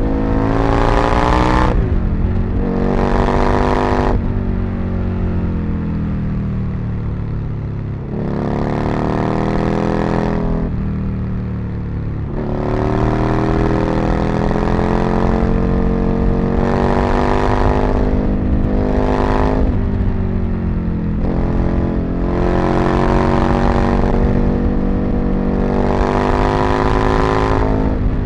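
Aprilia RSV Mille's V-twin engine ridden hard, revving up again and again under throttle with a rising pitch, each climb cut off by a sudden drop as the throttle closes or the next gear goes in.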